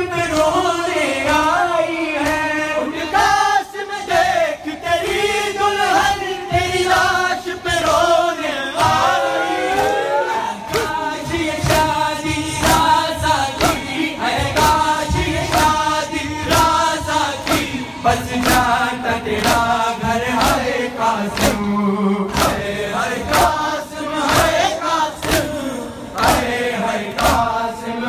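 A crowd of men chanting a noha lament together, with a steady rhythm of sharp slaps from hands beaten on chests (matam), about one and a half beats a second, clearest in the second half.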